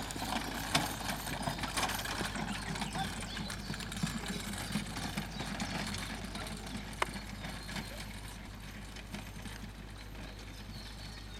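Hoofbeats of a single horse trotting on grass while pulling a four-wheeled carriage, growing fainter as it draws away.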